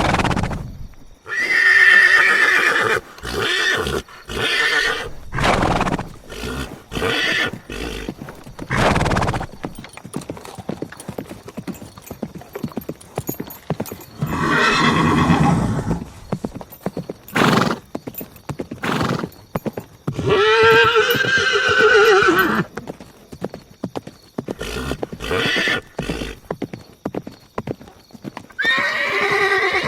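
Horses neighing, with long wavering whinnies about a second in, around the twenty-second mark and again near the end. Between them come hooves clip-clopping and short snorts.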